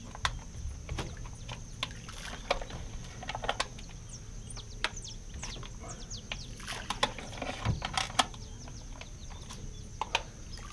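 Birds chirping over a steady high whine, with scattered small clicks and splashes as handfuls of fishing bait are tossed onto calm water.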